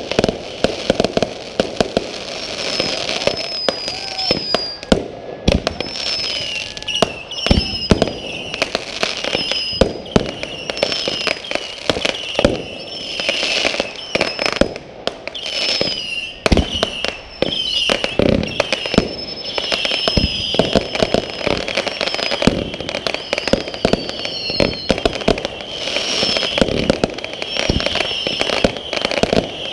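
Aerial fireworks going off in quick succession: a continuous run of bangs and crackling pops, with many short high whistles mixed in.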